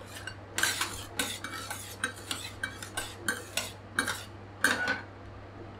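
Two flat steel scrapers scraping and tapping on a stainless-steel rolled-ice-cream cold plate as they spread a puddle of cola across it: a quick, uneven series of sharp metal-on-metal strokes.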